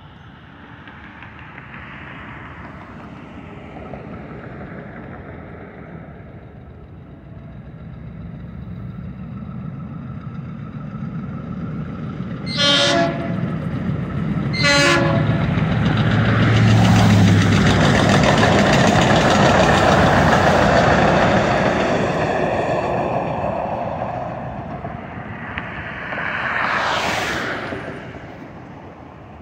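DART light rail train approaching and passing: two short horn blasts about two seconds apart, then the rumble of the cars going by, loudest in the middle and fading away. A brief whoosh comes near the end.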